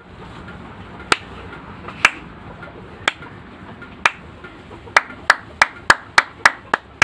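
One person's hand claps: slow single claps about a second apart, speeding up to about three a second for the last couple of seconds.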